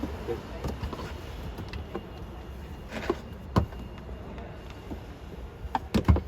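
Scattered clicks and knocks of hand tools and metal parts being handled during disassembly, a few single knocks and then a quick cluster of three near the end, over a low steady background hum.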